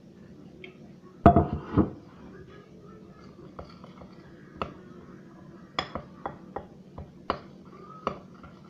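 A spoon clinking and knocking against a bowl as a flour mixture is stirred, in sharp irregular taps. A louder cluster of clatters about a second in.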